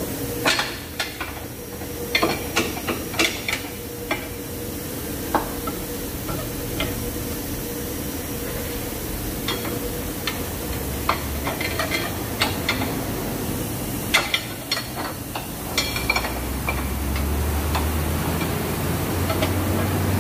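Ratchet wrench and hand tools clicking and clinking against steel as the bolts of the lower control arm are loosened: irregular sharp metallic clicks, some in quick runs, over a steady workshop hum. A low hum comes in near the end.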